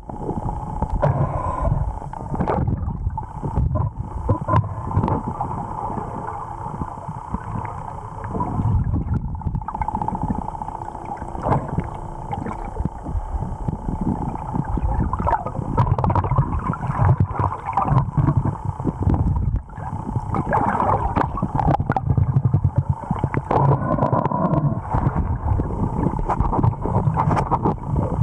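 Muffled underwater sound through a camera housing: water rushing and gurgling, with many scattered clicks and knocks.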